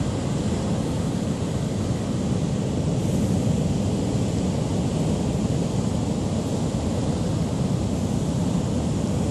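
Steady low roar of heavy storm surf breaking on rocks, a continuous rumbling wash with no distinct single waves.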